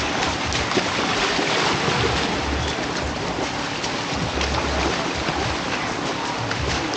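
Steady rushing noise of wind and water at the shoreline, with irregular low rumbles of wind buffeting the microphone.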